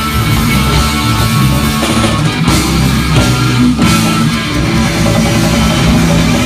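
Live rock band playing, with electric guitar over bass guitar.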